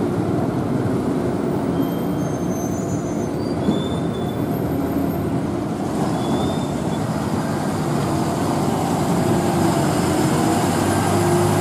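Diesel engine of a heavily loaded Ashok Leyland lorry running steadily as the truck crawls along at walking pace.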